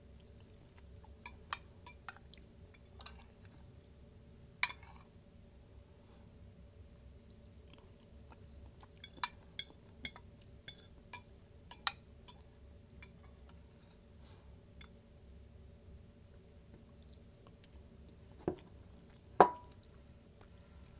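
Close-miked eating sounds: scattered sharp clicks and light taps of a utensil against a container, with chewing between them. Two louder knocks come about five seconds in and near the end.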